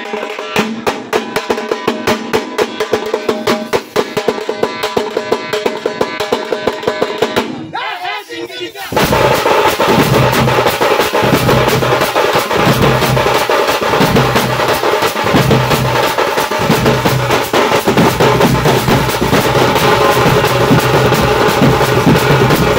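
Thappu drum band playing a fast rhythm together: a large bass drum struck with a stick, a big frame drum, a side drum and clashing hand cymbals. The playing drops away briefly about eight seconds in, then comes back louder with heavier bass.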